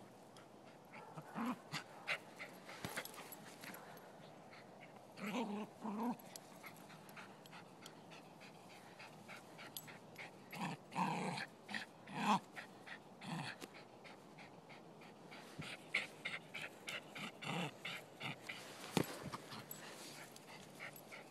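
Silky terrier growling and whining in short, intermittent bursts while playing with a ball, with scattered light clicks and scuffs between them.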